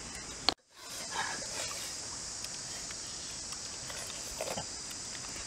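Steady outdoor background hiss. About half a second in there is a sharp click and a brief dropout to silence, where the video cuts. A few faint small sounds follow.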